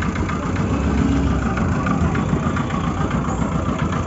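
Street traffic noise: motor vehicle engines running and idling, with a steady low rumble.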